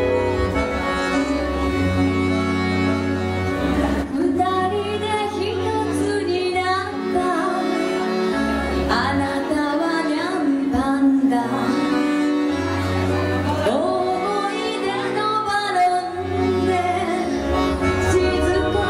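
A woman singing live over a piano accordion's held chords and a low bass line; her voice comes in about four seconds in.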